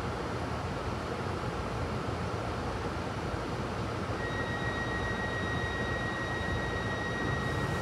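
Glasgow Subway train running through the tunnel, heard from inside the carriage: a steady rumble of wheels on rail, with a thin, steady high whine joining about four seconds in.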